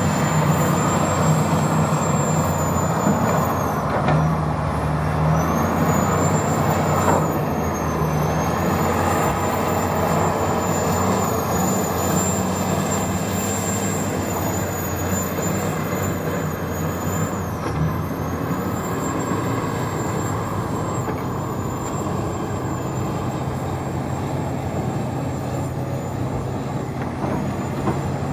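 Heavy diesel engines of a Komatsu PC1250 and a Caterpillar 385 hydraulic excavator running steadily under load as they dig and load haul trucks. A thin high whine wavers above the engine noise.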